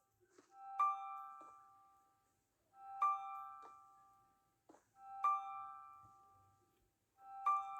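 Background music: a soft piano-like chime note repeating about every two seconds and fading away after each strike, with a few faint small taps between the notes.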